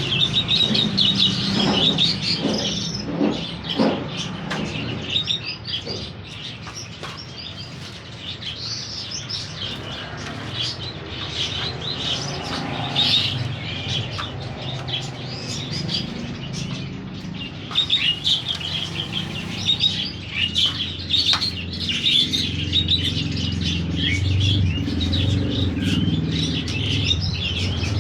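Many small caged birds chirping and twittering at once in rapid, overlapping calls, over a steady low rumble that grows louder in the second half.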